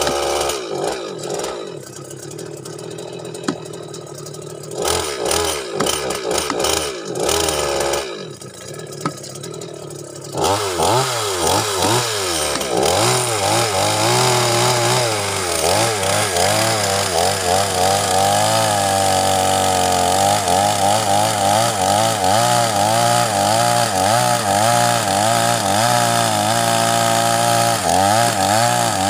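Petrol chainsaw running at low speed with a few brief revs, then from about ten seconds in held at full throttle and cutting into a log, its pitch wavering under load.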